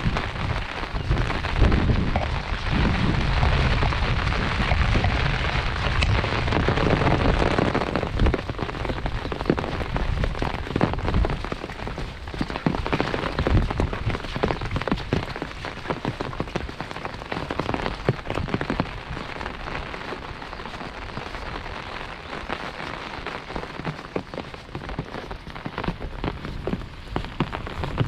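Heavy rain falling, a dense steady patter of drops, with a low rumble under it and louder in the first ten seconds or so.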